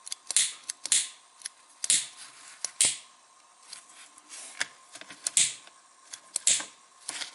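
Vintage Firebird butane lighter being lit over and over: sharp clicks of the piezo igniter, each with a short hiss of gas, roughly one to two a second.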